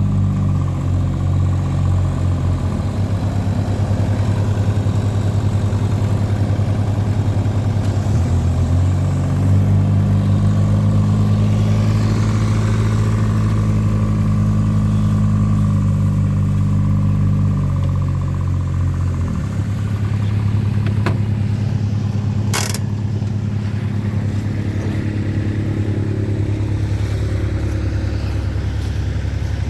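An engine running steadily with a low, even drone, its speed or load shifting a few times, with one sharp knock about three-quarters of the way through.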